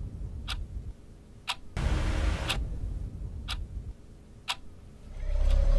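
Wall clock ticking once a second, five sharp ticks, over a low droning background that drops away and comes back. A louder steady low hum swells in near the end.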